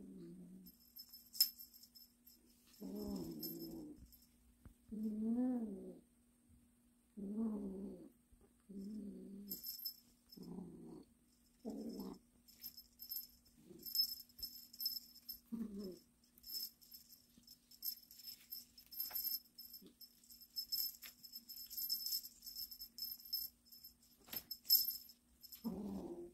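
A kitten giving a series of short, low meows, some rising and falling in pitch, spread irregularly while playing at catching a wand toy. Bursts of high jingling come in between.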